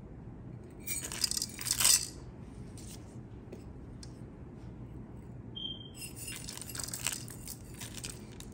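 Whole black peppercorns poured from a metal measuring spoon, rattling down onto the raw vegetables and gizzards in a cooking pot about a second in. A second spoonful of small whole spice seeds rattles in, more softly, around six to seven and a half seconds in.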